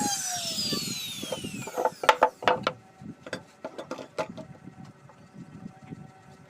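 Wood router's motor whine falling in pitch as it winds down after being switched off, followed by a series of sharp clicks and knocks as the tool and wood are handled.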